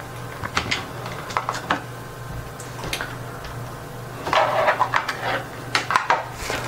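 Small plastic clicks and taps as a screwdriver pries open the snap-fit plastic case of a wireless PIR motion sensor, with a louder cluster of clicks and rattles about four to five seconds in as the front cover comes off. A low steady hum runs underneath.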